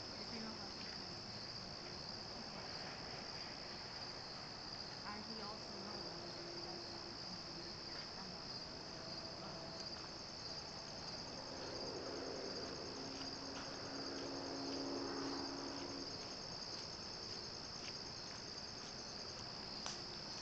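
A steady chorus of crickets makes a continuous high trill. A faint low hum swells and fades about midway through.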